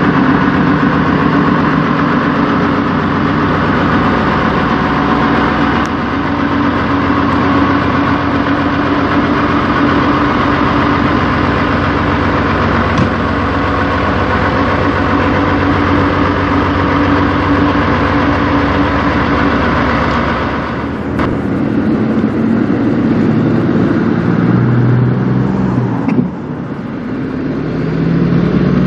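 Peterbilt semi tractor's diesel engine idling steadily. About two-thirds of the way in the sound cuts away, and near the end the truck is heard driving off, its engine note rising as it pulls away.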